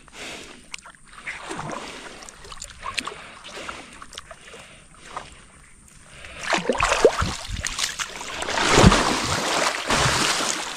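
Water splashing and sloshing around a small boat, with scattered knocks, growing louder about two-thirds of the way through.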